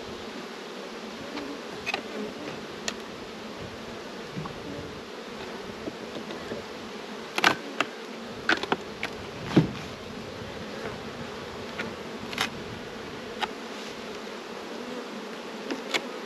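Honeybee colony humming steadily from an open hive, with a few sharp clicks and knocks, the loudest about halfway through.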